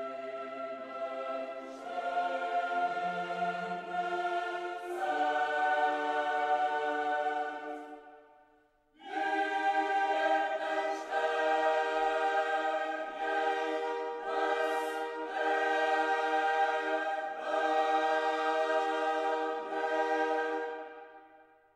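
Background music of slow, held chords that change every few seconds, breaking off briefly about eight seconds in and fading out at the end.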